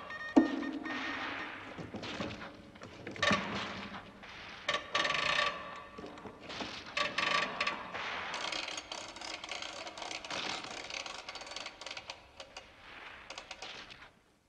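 Metallic clanks, clicks and rattles of a heavy machine gun's mechanism and pedestal mount being handled and swung round, the loudest clank about half a second in.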